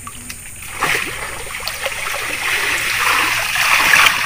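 Muddy water poured and splashing out of a plastic basin as a small pond is bailed out by hand. It starts about a second in and grows louder toward the end.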